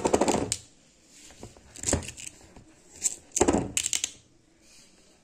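Copper coin with small steel screws on it dropped onto a hard surface: a sharp clack and a short metallic rattle. A few light clinks follow, then another burst of screws clinking against the coin at about three and a half seconds.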